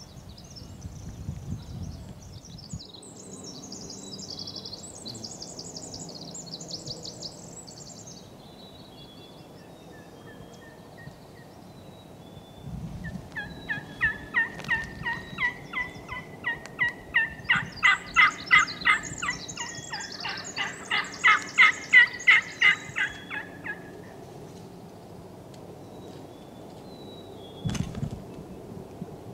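Wild turkeys gobbling, a long run of loud rattling calls in the middle, with small birds chirping high and thin before it.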